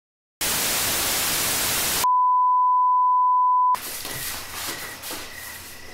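Television static hiss for about a second and a half, cut straight into a steady high-pitched test-tone beep that stops abruptly after under two seconds. Then quiet night ambience with crickets chirping in a steady pulsing trill.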